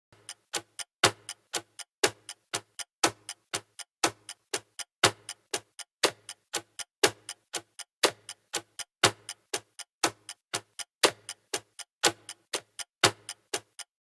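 Smartphone ringtone made of short, sharp ticking notes, about four or five a second, in a pattern that repeats every second with the loudest tick on each beat.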